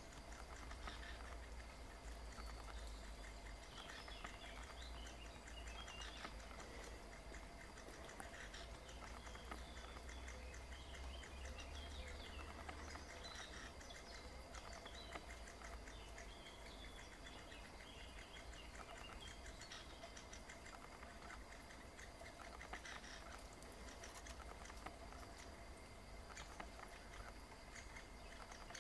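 Great spotted woodpecker nestlings begging from the nest hole: faint, scattered high chirps, most frequent in the first half.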